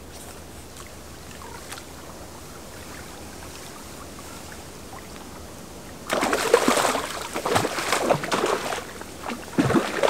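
A hooked river fish splashing and thrashing at the surface as it is drawn into a landing net, starting suddenly about six seconds in and flaring again near the end, over a steady low wash of the river current.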